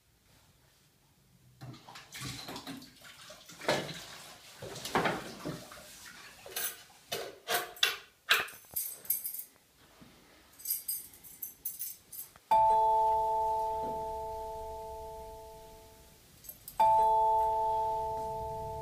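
Scattered knocks, clatter and rustling of things being handled. A mobile phone then rings twice, about four seconds apart; each ring is a chiming chord that fades slowly, and the second is cut off near the end as the call is answered.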